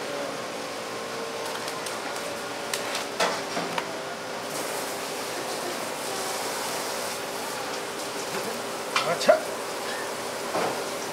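Steady mechanical hum, like a fan or cooling unit, with a few short sharp knocks and clinks: a cluster about three seconds in and another pair around nine seconds in, the loudest.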